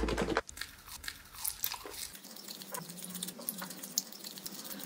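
Close-up eating: bites and wet chewing of chicken nuggets coated in thick hot sauce, heard as small irregular clicks. A deep bass note fades out in the first half second.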